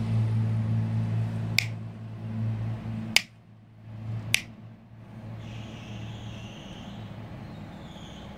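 Three finger snaps near the phone, at about one and a half, three and four and a half seconds in, the middle one the loudest. Under the first three seconds a vehicle engine hums low and steady, then drops away.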